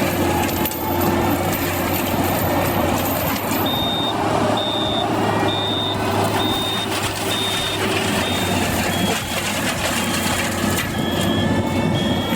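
Heavy machine's engine running steadily. From about four seconds in, a reversing alarm beeps at one pitch, a little under once a second.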